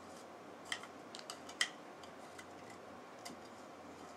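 A handful of small clicks and taps from the parts of a HOBO Waterproof Shuttle being handled as its circuit board is fitted back into the grooves of its case. The loudest click comes about one and a half seconds in.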